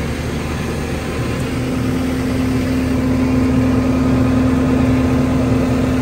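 Tractor engine running steadily while driving a mounted field sprayer's pump through the PTO shaft to mix the spray tank, a steady hum with one even tone.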